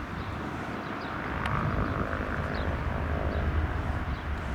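Piston engine of a Socata TB-20 Trinidad light aircraft running at low power, a steady low rumble that swells slightly after a second or so. Faint, short, high chirps repeat over it.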